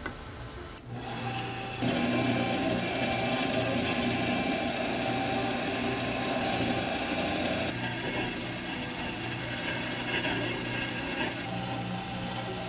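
Benchtop bandsaw running, its blade cutting through a pale wooden board along a curved outline. The cutting gets louder about two seconds in and eases off a little after about eight seconds.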